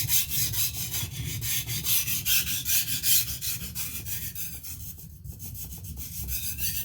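Steel knife edge scraped back and forth on a coarse King 300 whetstone, a quick run of gritty rasping strokes that eases briefly about five seconds in. This is the coarse-stone stage, raising a burr on the edge.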